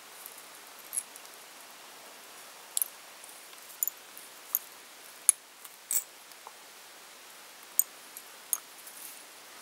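Small sharp clicks and ticks, irregular and now and then in quick pairs, from hands working thread and bobbin on a tube fly held in a fly-tying vice, over a faint steady hiss.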